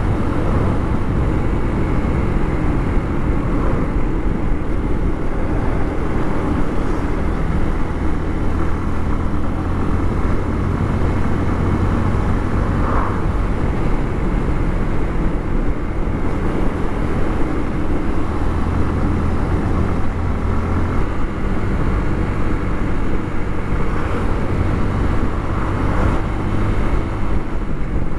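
Motorcycle engine running at a steady cruising speed along with road noise, with no revving or shifting heard.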